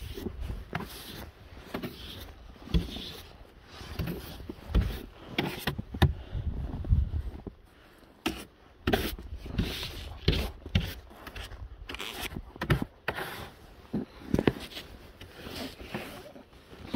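Snow brush sweeping snow off a car in quick, uneven strokes, the bristles scraping over the bodywork, with a few sharp knocks along the way.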